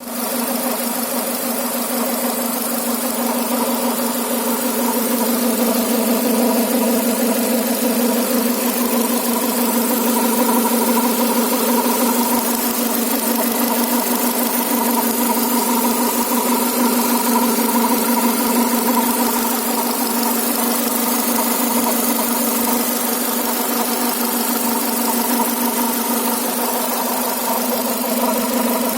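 Renault Duster's two-litre engine idling steadily, with a faint high whistle running over the engine sound. The whistle appeared at 25,000 km and its cause is not yet known.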